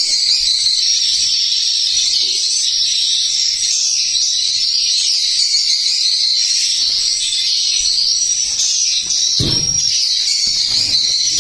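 Recorded swiftlet calls played as a lure through tweeter speakers in a swiftlet house, a dense, continuous high chirping. A single dull thump about nine and a half seconds in.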